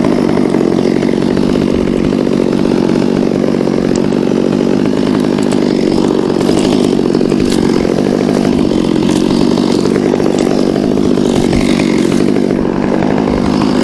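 Chainsaw running steadily, with no pauses or big changes in speed.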